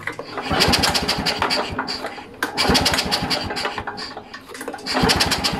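Victa two-stroke lawnmower engine being cranked on its recoil pull-cord starter, with a compression gauge in place of the spark plug: three pulls, each about a second and a half of rapid chattering turnover, with short pauses between.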